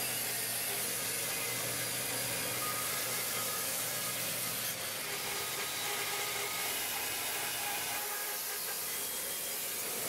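Homemade wooden bandsaw mill sawing through a log: the steady, even rush of the band blade cutting the wood.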